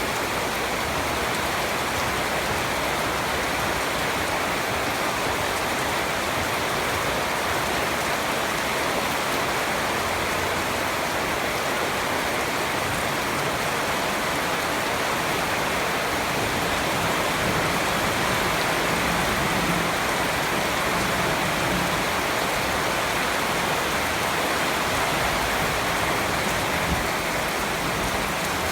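Steady, heavy rain falling, an even dense patter.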